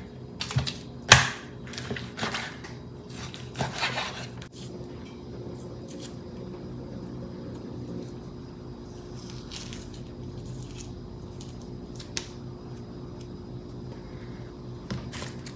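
Kitchen clatter of pots and utensils for the first four seconds or so, with one sharp metal clank about a second in. Then a steady low hum with an occasional click.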